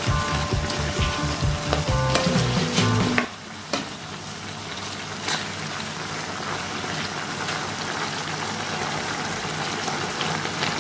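Background music for about the first three seconds, then it cuts off, leaving chicken adobo simmering in its sauce in a nonstick pan: a steady bubbling sizzle, with a few clicks of the spatula stirring the pieces.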